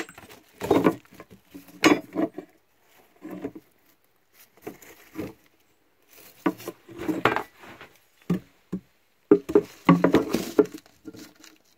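Scattered knocks, taps and rubbing from a steel framing square being pressed and shifted by hand into the inside corners of a wooden beehive deep box, checking it for square.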